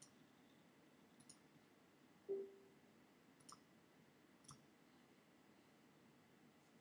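Near silence broken by a few faint, sharp clicks from trading cards and their boxes being handled, with one short low tone about two seconds in that is the loudest moment.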